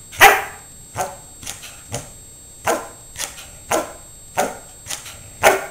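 Blue heeler (Australian cattle dog) barking ten short single barks, one every half second or so, counting to ten on command.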